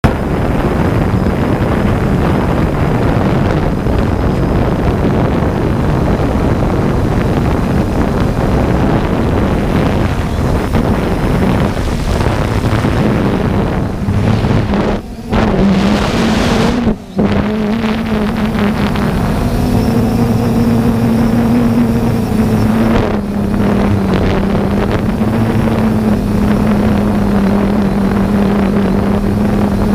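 3DR Solo quadcopter's motors and propellers whirring, heard up close from the camera on the drone: a loud, steady rush with a humming tone that settles slightly higher in the second half, broken by two brief dropouts about halfway through.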